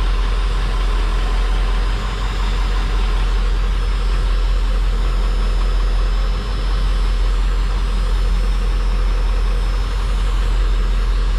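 1997 Ford F-Super Duty truck engine idling steadily, heard from inside the cab.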